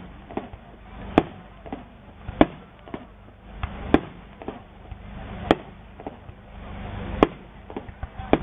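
Aerial fireworks going off: a loud bang about every one to one and a half seconds, with smaller pops between them.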